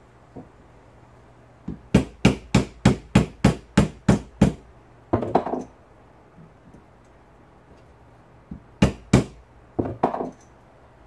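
Hammer tapping a socket to drive a new 608 ball bearing onto a shop vac motor shaft. About nine sharp taps come at roughly three a second, followed by a short rattle. Two more taps and another rattle come near the end.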